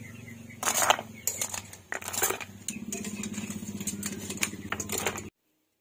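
Metal tongs clacking against a steel wok, and cooked crabs and shrimp dropping into a plastic bowl in a run of sharp clatters, over a steady low hum. Everything cuts off suddenly near the end.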